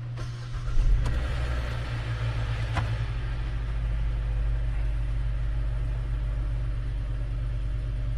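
2018 Hyundai Elantra engine starting for the first time after an oil pickup tube repair: it fires and catches just under a second in, then runs steadily. A single sharp click is heard near three seconds in.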